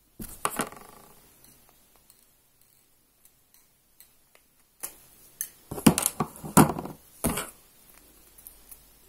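Cutting pliers working an insulated copper wire, stripping its insulation: sharp clicks and snips with handling noise. One cluster comes right at the start, and a louder run comes about five seconds in.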